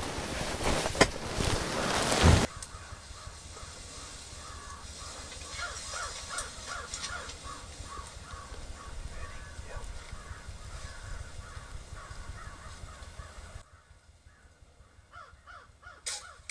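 A loud rustle of handling noise for the first couple of seconds, then birds calling over and over in a run of short repeated calls. The sound drops off suddenly a few seconds before the end.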